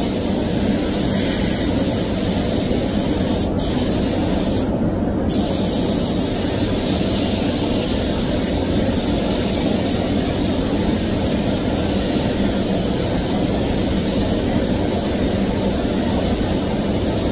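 Automotive paint booth running with a steady rumble under the hiss of a gravity-feed spray gun's air as paint is sprayed. The hiss cuts out for about half a second around five seconds in, when the trigger is let off, while the rumble continues.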